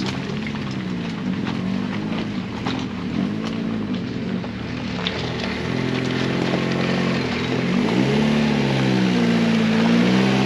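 Fiat Panda 4x4 engine working off-road, its revs rising and falling over and over as the driver feeds the throttle, with scattered sharp knocks and clatter from the car. About halfway through the revs climb and stay higher, and the engine grows louder.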